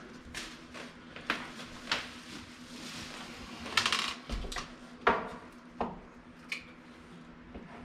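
Hand work on an old wall light switch in its electrical box: a string of small sharp clicks, clinks and a short scrape of metal and plastic, spaced irregularly about a second apart.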